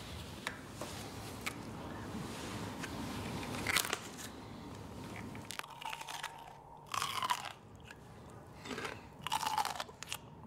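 People biting into raw celery stalks and chewing them: several crisp, sharp crunches, with quieter chewing between.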